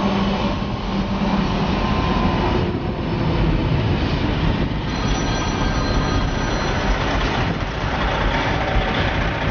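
Steady road and wind noise heard from inside a car cabin at highway speed: a continuous rumble from the tyres and engine.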